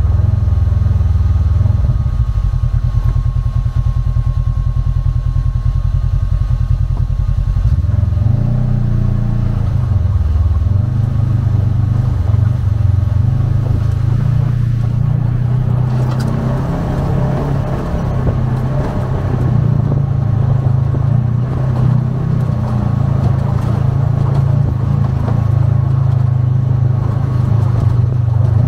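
Polaris RZR side-by-side's engine running steadily as it drives over rough terrain. The engine note changes about 8 seconds in, and a rougher rattling noise joins from about halfway through.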